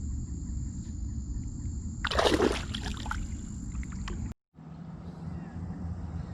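Water sloshing against a kayak, with one short splash about two seconds in; the sound cuts out briefly just after four seconds, then the low rumble resumes.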